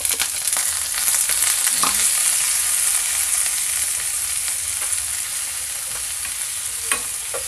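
Raw shrimp sizzling in hot oil in a frying pan, a strong hiss that comes up as they go in and eases slowly. A spatula stirs them, knocking against the pan a couple of times near the end.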